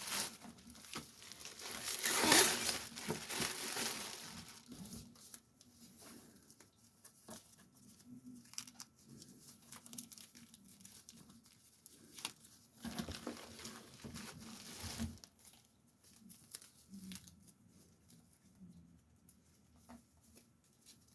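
Packaging rustling and crinkling as bookshelf speakers are lifted out of their box and unwrapped. There are two louder stretches of crinkling, about two seconds in and about thirteen seconds in, with scattered light knocks and rustles between them.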